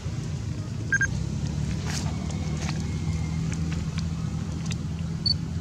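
Steady low outdoor background rumble, with a scatter of short sharp clicks and two brief high tones, one about a second in and one near the end.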